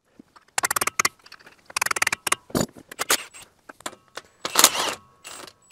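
Metal clanking and rattling from a semi truck's driveshaft and U-joint being turned and handled: a run of sharp clatters with brief metallic ringing, the loudest clatter about four and a half seconds in.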